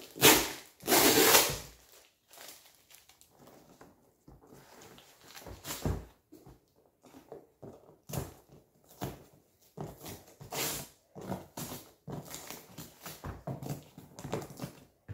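A cardboard parcel being torn open by hand: two loud ripping tears in the first two seconds, then scattered shorter rustles, crackles and knocks of cardboard flaps and crumpled packing paper.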